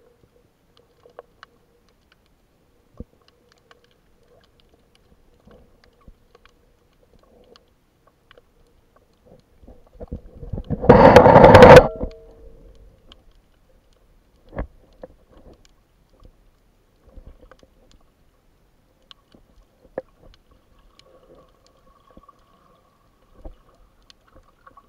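Muffled underwater sound from an action camera in its waterproof housing: sparse faint clicks and knocks. About eleven seconds in comes a loud rushing burst of noise lasting under two seconds.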